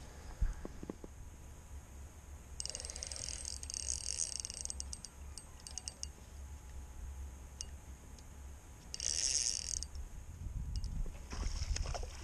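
Spinning reel being worked in two short spells, a high whirring with small clicks, over a steady low wind rumble on the microphone.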